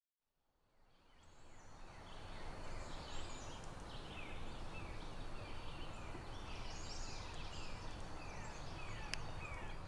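Woodland ambience fading in: birds calling in a run of short falling notes, about two a second, over a steady low rumble and hiss. A single sharp click near the end.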